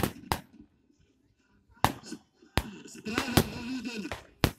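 Scattered rifle shots fired with blanks: about six sharp cracks at irregular intervals, with a brief lull near the start and voices heard between the later shots.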